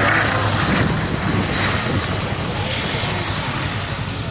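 Gloster Gladiator biplane's Bristol Mercury nine-cylinder radial engine running steadily in a flypast, growing gradually fainter as the aircraft moves away.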